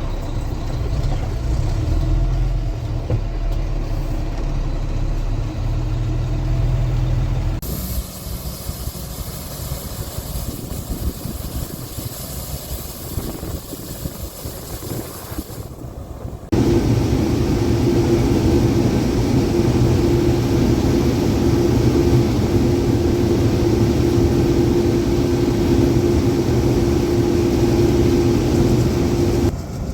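Heavy diesel farm machinery engine running steadily, in three stretches that change abruptly about 8 and 17 seconds in; the last stretch is the loudest, with a steady hum over the engine noise.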